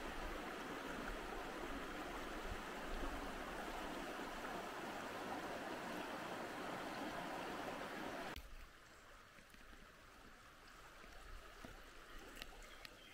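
Kosí potok, a small forest stream, flowing with a steady rush of water. About eight seconds in, the sound drops suddenly to a much fainter flow.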